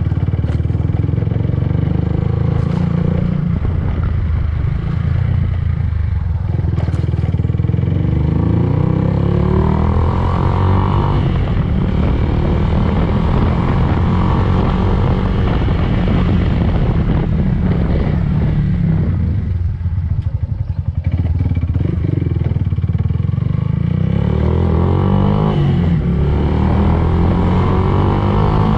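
Yamaha Fazer 150's single-cylinder four-stroke engine running steadily, its engine speed shifting a few times.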